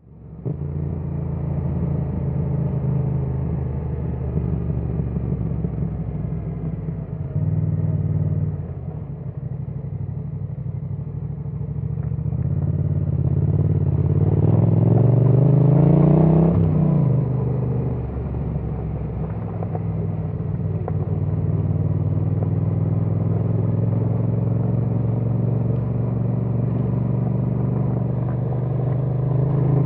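Yamaha XSR700's parallel-twin engine running at a steady low speed, heard from the bike itself. About halfway through the revs climb in a rising pitch, then fall away abruptly and settle back to a steady run.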